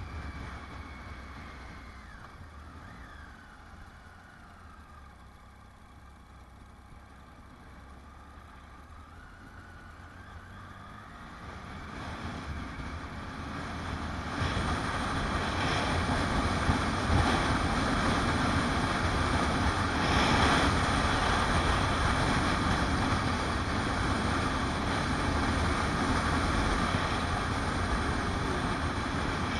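Motorcycle engine running as the bike rides along, heard from a camera mounted behind the windscreen; the engine note falls and rises in the quieter first part. About halfway through, wind rushing over the microphone grows much louder and covers most of the engine.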